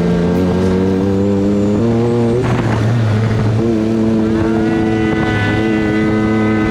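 Off-road buggy engine running hard on the track: its pitch holds, breaks with a short rush of noise about two and a half seconds in, then climbs again as it pulls.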